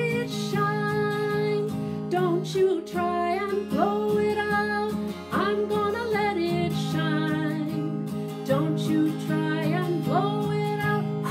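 A woman singing a simple children's song while strumming an acoustic guitar.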